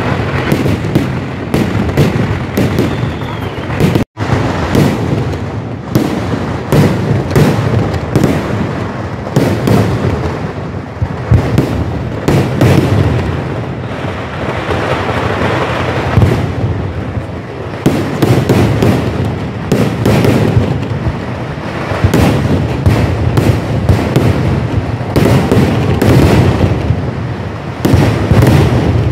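Dense fireworks barrage (vedikkettu): rapid, overlapping bangs and crackles of aerial shells and firecrackers with no pause, cut off for an instant about four seconds in.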